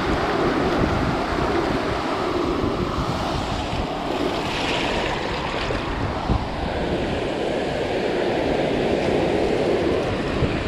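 Shallow surf washing in and out around the legs, a steady rushing of water, with wind rumbling on the microphone and a single brief knock about six seconds in.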